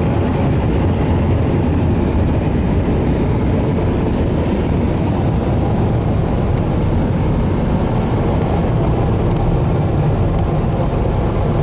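Dryer blowers of a Ryko Softgloss Maxx in-bay car wash running in the drying stage, a loud, steady rush of air heard from inside the vehicle's cab, heaviest in the low end.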